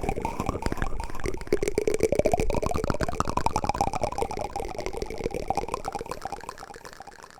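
Bubbling, watery sound: a dense crackle with a warbling pitch that wavers up and down, fading away near the end.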